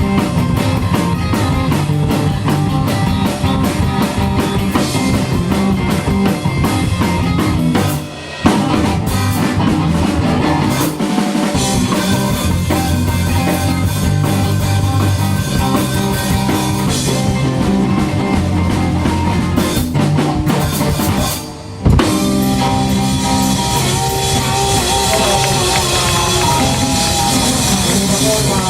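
Live rock band playing an instrumental passage with drum kit, electric guitar and bass. The music stops short twice, about 8 and 21 seconds in, and comes back on a loud hit each time.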